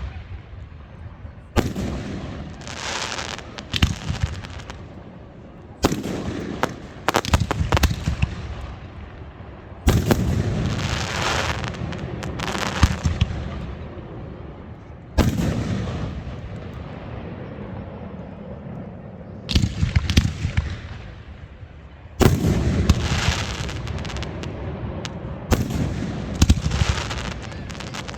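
Aerial fireworks exploding: a run of sharp booms, some in quick clusters of pops, each followed by a rumbling echo that dies away over a few seconds.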